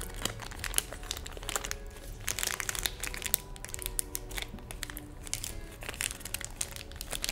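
Crinkling of a snack-bar wrapper being handled and torn open by hand: many small, sharp crackles, over soft background music.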